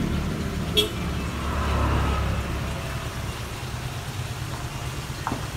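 Low rumble of a passing motor vehicle, easing off after about two seconds, with one sharp click about a second in.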